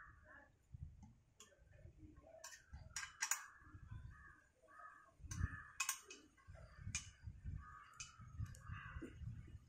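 Scattered sharp clicks and light knocks of hands fitting and tightening parts of a bag filter housing. Short rasping sounds come between them.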